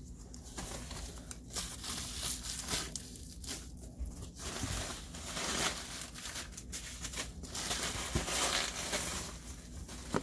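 Packing material crinkling and tearing in irregular rustling stretches, with scattered small clicks, as a shipped package is unpacked by hand.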